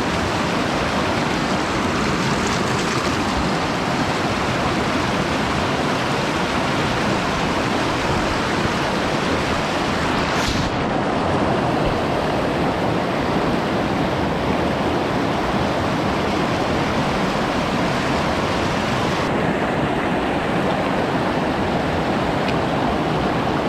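Steady rush of a fast-flowing mountain stream, its water tumbling over rocks.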